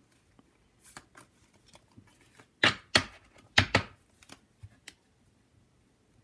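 Pokémon trading cards being handled and slid against one another, with soft rustles and three louder swishes about two and a half to four seconds in.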